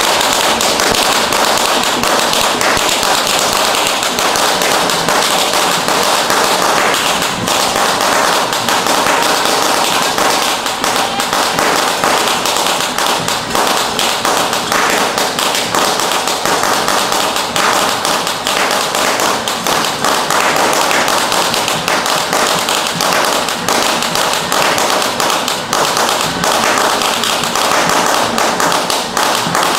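A long string of firecrackers going off in a dense, rapid, continuous crackle of sharp pops.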